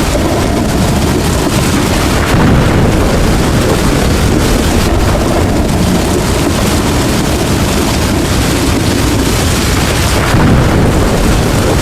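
Heavy, steady rain with a low rumble of thunder under it, swelling slightly twice: about two seconds in and again near the end.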